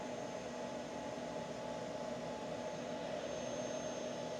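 Steady fan hum and hiss of running equipment. A faint high-pitched whine comes in about three seconds in.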